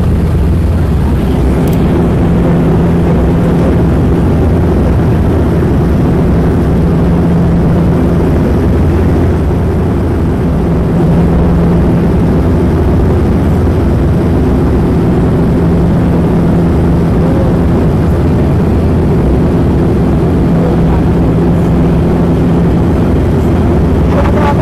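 Steady drone inside the cabin of a Bombardier Q400 turboprop airliner in flight: the propellers' low hum, a few steady tones over a constant rushing noise.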